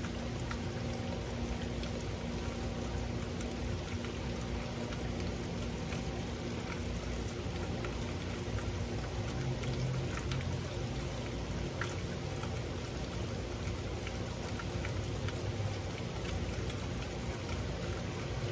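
Steady rain falling, a constant hiss of rainfall with scattered individual drops ticking on a surface.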